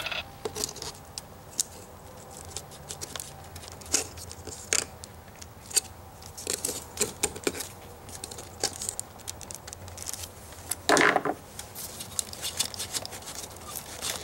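Light clicks, taps and small clatters of hands working the plastic wiring connector clips on a car's ignition control module, with a short scraping rustle about eleven seconds in.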